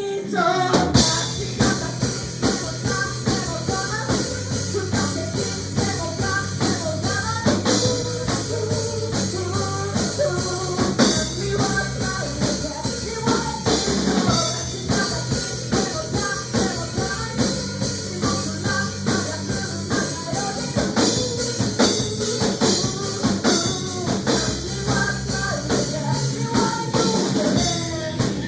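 Music with a drum kit keeping a fast, steady beat over held bass notes, with a melodic part above.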